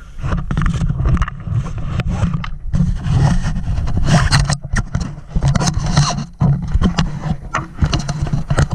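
Handling noise on the camera's microphone: irregular rubbing, scraping and knocking over a heavy low rumble as the camera is moved about.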